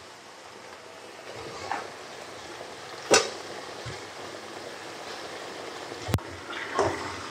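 Yogurt-marinated chicken going into a pan of frying masala: a steady sizzle, with a few sharp knocks of a utensil against the pan.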